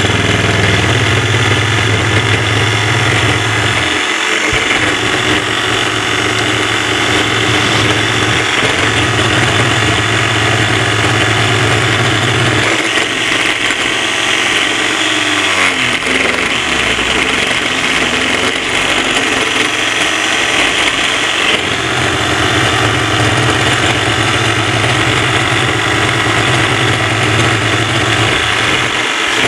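Homemade cardboard diesel-engine model running on its small electric motor: a steady, engine-like mechanical rattle. Its deep hum drops out for several seconds in the middle and then comes back.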